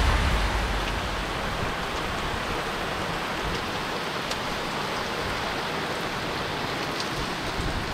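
Rain falling steadily on a sailboat's deck and rigging in a thunderstorm, an even hiss with a few faint drip ticks.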